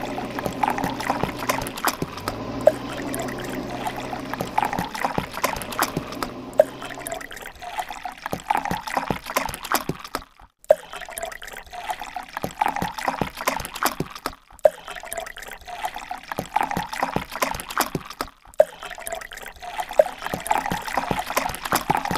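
Shallow river water trickling and splashing around toy vehicles standing in it, with many small sharp splashes. A steady low hum runs underneath for the first several seconds, and the sound cuts out briefly three times later on.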